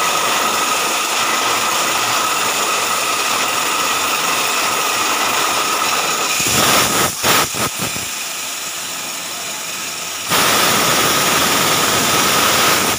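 Mini portable borewell drilling rig running, a steady mechanical noise with a constant high whine and hiss. About six and a half seconds in it surges unevenly and drops quieter for a couple of seconds, then comes back up to full level about ten seconds in.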